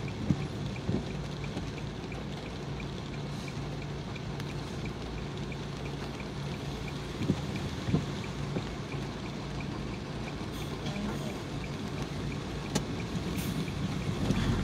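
Car cabin sound while waiting at a light in the rain: a steady low engine idle hum and an even wash of rain and road noise, with a steady light ticking. Two pairs of soft knocks, near the start and about halfway through, as the windscreen wipers sweep.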